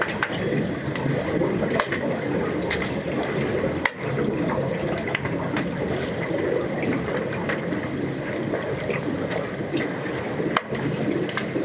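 Underwater pool noise heard through a submerged camera during underwater hockey: a steady muffled rush of water and bubbles from the swimmers, with many scattered sharp clicks and ticks at irregular times, two of them louder.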